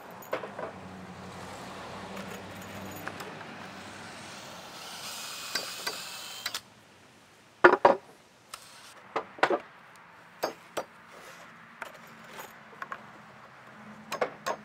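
Hands handling screws and pine boards on a work table: a metallic jingle of loose screws in their box, then a string of separate sharp wooden knocks and clacks as boards are shifted and set down, the loudest a little past the middle.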